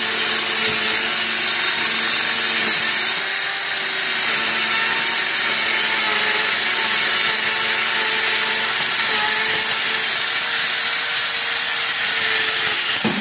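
Bosch GKS 12V-LI 12-volt cordless circular saw running steadily as it cuts along through a 12 mm OSB board, a dense high whine of blade and motor with a steady low hum.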